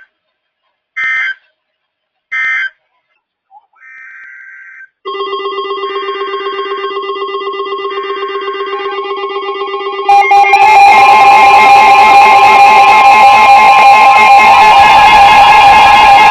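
Three short bursts of Emergency Alert System data tones, the SAME header of a new alert. From about five seconds in, weather-alert radios sound their alarms in layered, pulsing beeps, and around ten seconds in a louder, harsher alarm tone joins them.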